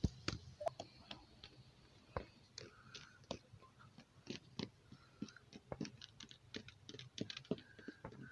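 Plastic Schleich toy horse's hooves tapped on concrete: an irregular run of light clicks, several a second, imitating hoofbeats.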